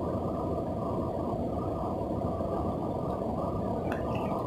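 Steady rush of flowing river water, with a short click about four seconds in.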